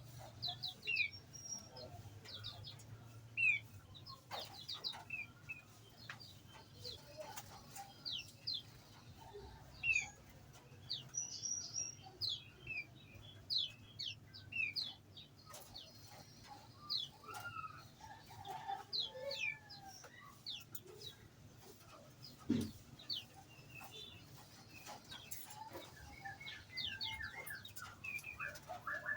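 Small birds in an aviary chirping: many short, high, scattered chirps, with a few lower calls in the middle and a single sharp knock about two-thirds of the way through, over a low steady hum.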